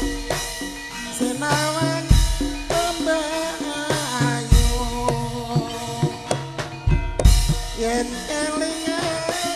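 Live Javanese tayub dance music: an ensemble with drums and a wavering melodic line, and a deep low stroke about every two and a half seconds.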